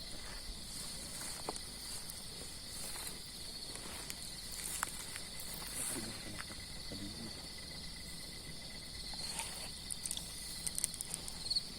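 Night insect chorus: crickets trilling in steady, high-pitched bands, with a few faint clicks and rustles.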